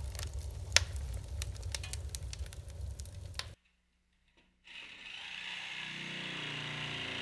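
Crackling with many sharp clicks over a low rumble, which cuts off suddenly after about three and a half seconds. After a second of silence a steady hiss fades in and grows louder.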